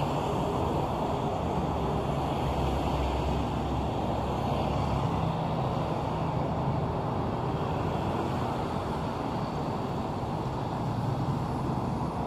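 Steady road traffic on a busy city street: a continuous rumble of passing cars and other vehicles.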